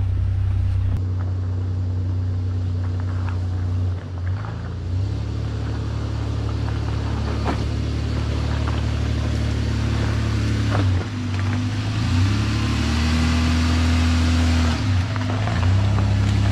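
Toyota Land Cruiser engine running at very low throttle as the truck crawls over a rocky trail, its pitch stepping up and down a little as the throttle changes. Scattered sharp clicks and knocks of rocks under the tyres.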